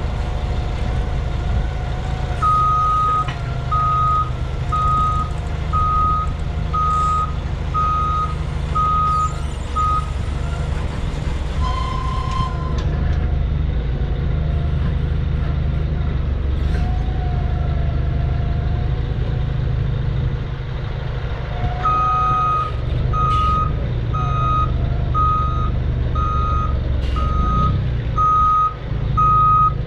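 Toyota forklift engine running under load, its reversing alarm beeping about once a second while it backs up, in two spells: one early, one in the last third.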